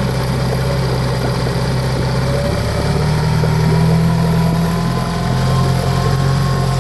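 Honda four-stroke outboard motor running steadily; its engine speed rises about three seconds in, dips briefly around five seconds and picks up again.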